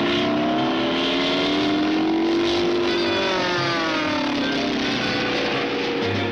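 Cartoon sound effect of a motor vehicle engine, its pitch rising for about two and a half seconds and then falling away.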